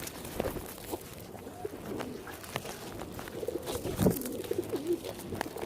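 Pigeons cooing: a soft, wavering coo phrase starting about three and a half seconds in, with scattered light clicks and a knock around the birds.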